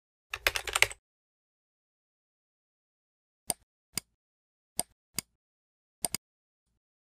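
A quick burst of computer keyboard typing, then single mouse clicks about every half second, ending in a double click.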